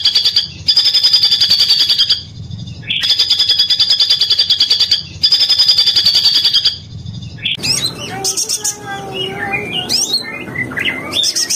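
Recorded songbird song used as training audio: a fast, buzzing trill repeated in bouts of about two seconds with short pauses, then, from about seven seconds in, a varied song of quick gliding whistles and chirps.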